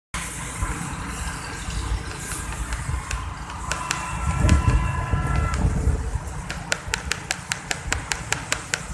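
Road noise from a vehicle moving along a wet road in rain: a steady low rumble with a hiss of tyres, spray and wind. A brief steady tone sounds near the middle, and a string of sharp clicks comes in the last few seconds.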